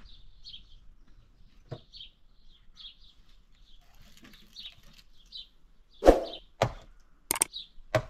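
A small bird chirping repeatedly, short high calls about once or twice a second. A few sharp knocks and clicks come in the last two seconds, the loudest about six seconds in.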